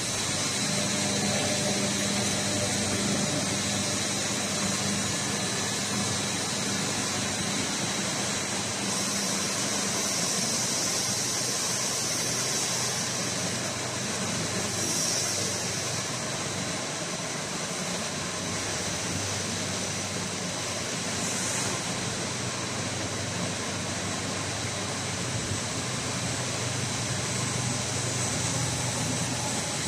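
Twin-screw compounding extruder line running: a steady machine drone with a high hiss and a low hum throughout.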